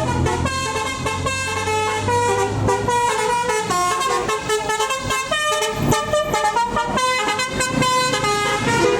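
Indonesian bus 'telolet' multi-tone air horn playing a fast basuri-style melody of short stepped notes, cutting off at the end. A bus engine rumbles low beneath it for the first two or three seconds.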